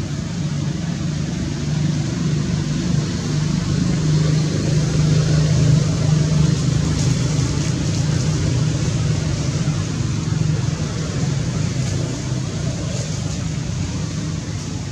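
Low motor-vehicle engine hum over a steady hiss, growing louder toward the middle and easing off again.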